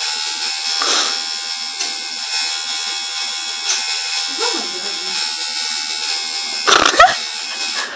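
Electric tattoo machine buzzing steadily, with a brief louder sound about seven seconds in.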